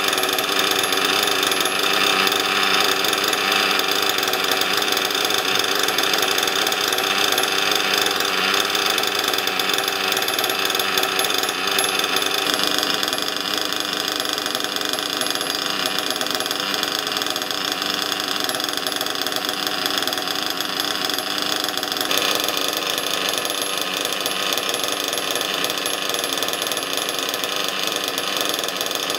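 Reds XR21 .21 nitro engine running steadily at idle during its break-in, a fast, even mechanical buzz. It drops slightly in loudness about twelve seconds in and changes tone again about 22 seconds in.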